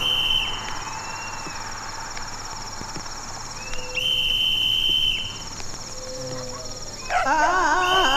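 Night ambience of crickets chirping steadily, with a high, steady whistle-like tone that comes back about every four seconds. From about seven seconds in, a wavering, sliding, voice-like wail joins.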